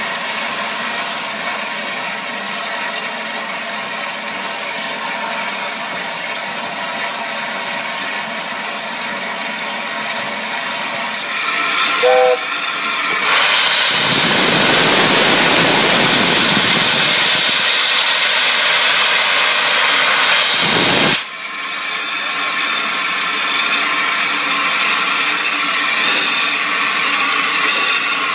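Steam locomotive, the Peppercorn A1 Pacific 60163 Tornado, standing in steam with a steady hiss of escaping steam. About twelve seconds in comes a very short note, then a loud rush of steam blows off for about eight seconds and cuts off suddenly, and the steady hiss returns.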